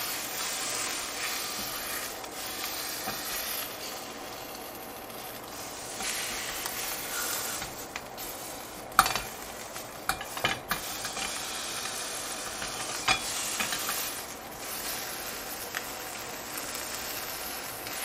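Chicken leg quarter frying in a little oil in a stainless steel pan, a steady sizzle, with metal tongs clinking against the pan several times as the piece is turned and lifted, the loudest clink about halfway through.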